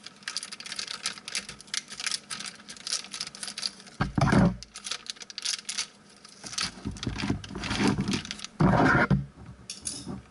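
Thin plastic toy packaging bag crinkling and rustling as it is cut open with scissors and handled, with two louder rustles about four and nine seconds in.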